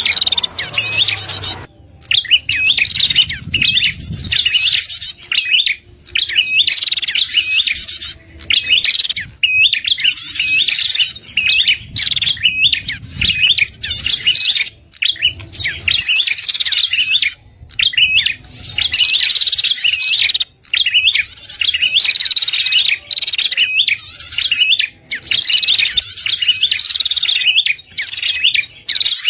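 Prenjak kepala merah song used as a trapping lure call: quick, high, twisting chirps in phrases of a second or two, repeated over and over with short pauses between them.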